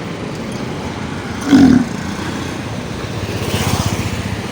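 A bull gives a short, loud call about one and a half seconds in, then a rapid, pulsing throaty rattle a couple of seconds later, over steady road traffic. The noise is of the kind the owner likens to a train engine and suspects comes from something stuck in the bull's throat.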